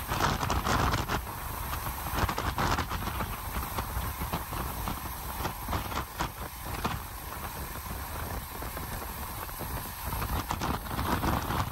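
Storm-swollen creek runoff rushing out through a breach in a sand berm, churning in standing waves and whitewater, with a steady low rumble and irregular splashing knocks throughout.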